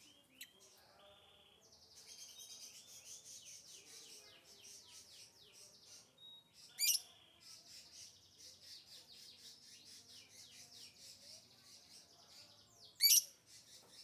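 Lovebird chirping in a fast, continuous run of high twittering notes. Two loud, shrill calls break through, about 7 seconds in and again near the end.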